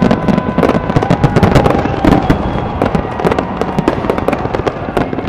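Fireworks display: a dense, continuous run of aerial shell bursts, bangs and crackles, several a second, loud and without a break.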